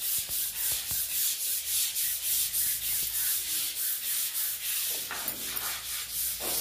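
A stiff brush scrubbing a tiled bathroom floor in quick back-and-forth strokes, about three a second, a steady rasping scrub.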